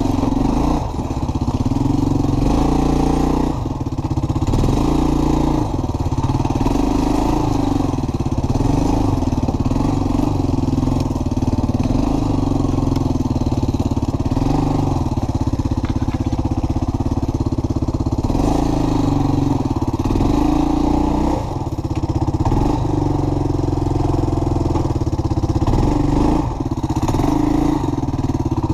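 A small ATV engine running steadily as the quad is ridden along a trail, its pitch rising and falling with the throttle, with a few brief dips.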